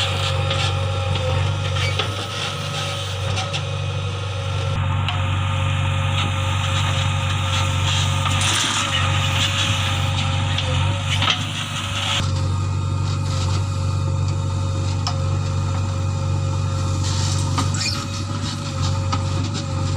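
JCB 3DX backhoe loader's diesel engine running steadily at working speed, with a steady whine over it and occasional knocks.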